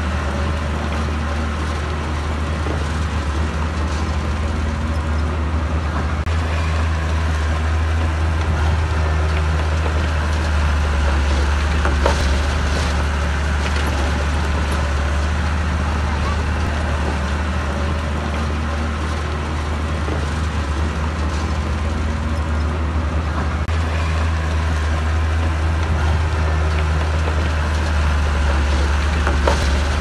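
Heavy earthmoving machine's diesel engine running steadily under load, its pitch slowly rising and falling, with a couple of sharp knocks.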